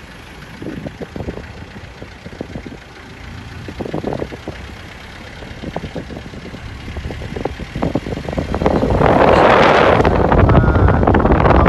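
Car driving slowly, with low engine and road rumble and some rattles. About nine seconds in, wind rushing over the microphone through the open window turns loud.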